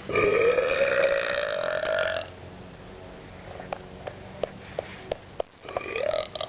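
A girl burping: one long burp of about two seconds that rises slightly in pitch, then several faint clicks, and a second burp starting near the end.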